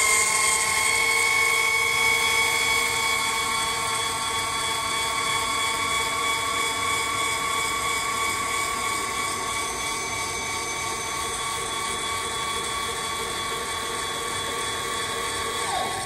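Two electric linear actuators running together in reverse, retracting their rods: a steady motor-and-gearbox whine made of several even tones. Near the end the whine sags in pitch and stops.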